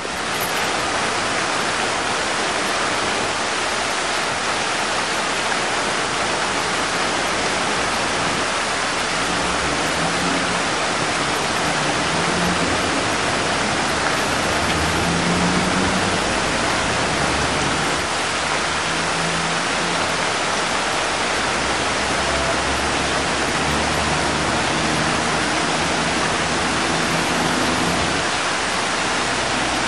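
Fountain water falling and splashing steadily, an even, unbroken rush of water noise.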